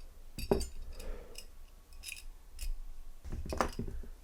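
Small metal parts of a butane lighter insert clicking and scraping as it is taken apart with tweezers and a small screwdriver. There are several sharp clicks, with the loudest bunch near the end.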